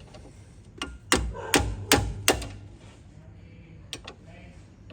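Sharp knocks and clanks of hand tools on a car's front suspension as the strut assembly is taken apart. There are about five loud strikes in quick succession between one and two and a half seconds in, and another single click near the end.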